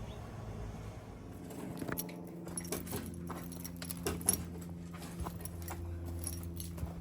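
A machine engine running steadily at a constant speed, joined about a second and a half in, with scattered metallic clinks and knocks of tools and materials over it.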